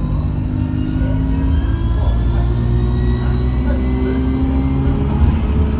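ADL Enviro200 single-deck bus accelerating under load, its engine note climbing steadily with a high-pitched turbocharger whine rising alongside it.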